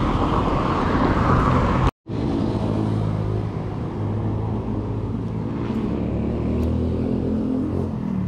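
Rushing wind and road noise of a bicycle ride, cutting out completely for a moment about two seconds in; after that a motor vehicle's engine hums steadily at a low, even pitch.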